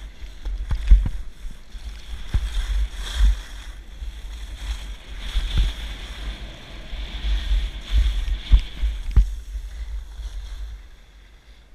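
Skis carving and scraping down packed snow, with wind rumbling on the body-worn camera's microphone and several low thumps as the skis ride over bumps. It quietens near the end.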